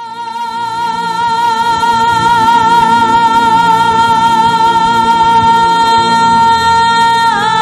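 Opening of a Bhawaiya folk song: one long sung note held steady, swelling in over the first couple of seconds, over instrumental accompaniment; near the end the voice bends into a wavering turn.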